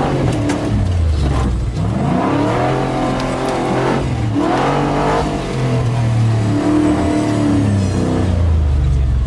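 Nissan Patrol 4x4's engine revving up and falling back several times as it is driven off-road, heard from inside the cab.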